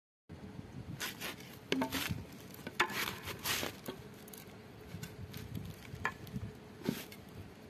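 Hollow bamboo poles knocking and scraping against each other as they are handled and sorted by hand, in a series of irregular knocks.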